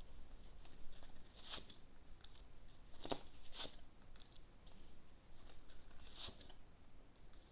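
Tarot cards being drawn and laid down on a table: a few separate light snaps and flicks of card stock, four or so, spaced a second or more apart.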